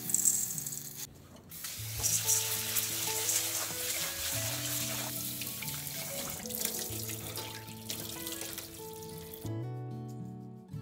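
Dry grains poured into a stainless steel bowl for about a second, then tap water running into a perforated stainless rice-washing bowl as the grains are rinsed, stopping shortly before the end. Background music plays throughout.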